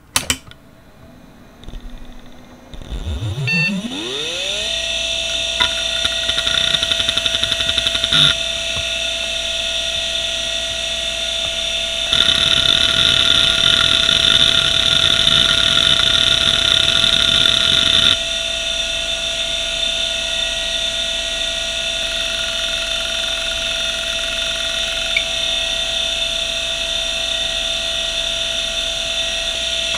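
Western Digital Caviar 1170 3.5-inch IDE hard drive powering on with a click, then spinning up in a rising whine that settles to a steady pitch within a few seconds. It runs on with a harsh hiss from spindle bearings the owner calls quite nasty, with a couple of single head clicks after spin-up. From about twelve to eighteen seconds in there is a louder, busier stretch of head seeking.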